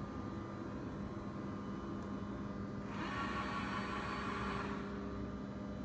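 Servo drives of a KUKA KR16 robot arm and DKP400 positioner running with a steady electrical hum and whine. About three seconds in, a louder motor-and-gear whine joins for about two seconds as an axis moves, then falls back to the steady hum.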